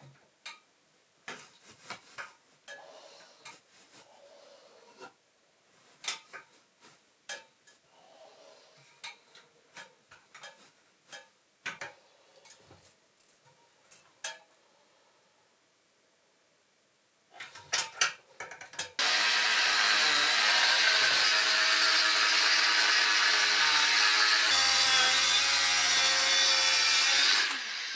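Scattered light knocks and rustles of handling work, then a power tool runs loudly and steadily for about eight seconds, changing pitch once midway and stopping abruptly near the end.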